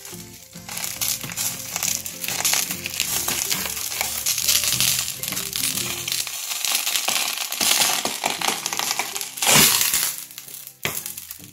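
Dense crackling, crinkling noise close to the microphone, with background music underneath that drops out about six seconds in. A brief loud burst of the crackling comes near the end.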